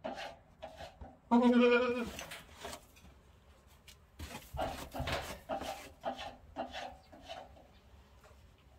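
Boer goat doe in labor bleating once, a short call about a second and a half in, then irregular scraping and rustling as she paws at the straw bedding with a front hoof.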